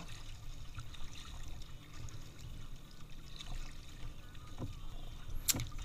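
Paddle strokes and choppy river water splashing and lapping against the hull of a Feathercraft folding kayak, over a low steady rumble, with a couple of faint ticks near the end.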